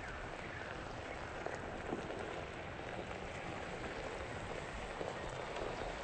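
Tyres of a Tesla Model S electric car rolling slowly over gravel: a faint, even crackle of small stones.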